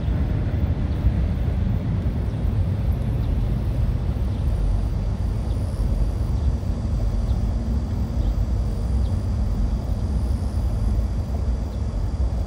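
Steady low rumble of vehicles crossing a double-deck road and subway bridge, with a Seoul Line 7 subway train on the lower deck, heard at a distance with no clear pass-by swell.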